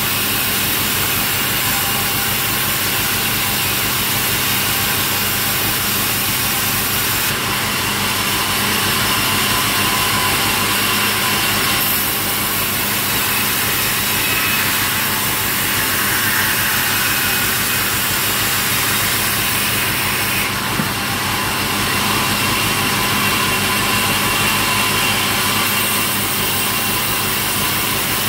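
Sawmill machine running steadily, an engine-like hum under a dense high-pitched whine of the saw; the high end changes character a few times.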